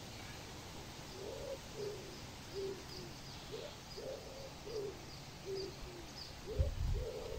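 Low, soft cooing calls repeated in a loose series, roughly two a second, over a faint steady hiss. A low rumble sets in near the end.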